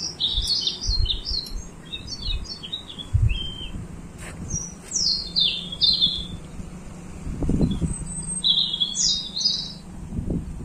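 Small birds chirping in quick runs of short, high, falling notes, coming in bursts with pauses between them, along with a few low thumps.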